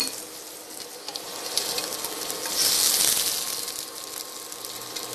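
Chopped bell peppers, onion and garlic sizzling in hot oil in a nonstick pan, with a few light clicks. The sizzle swells louder for about a second midway, then settles back.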